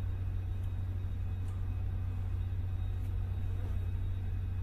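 Steady low machinery hum with a faint hiss, and a few faint light taps of a hammer on the universal-joint sleeve of a screw pump's shaft as the sleeve is knocked into position.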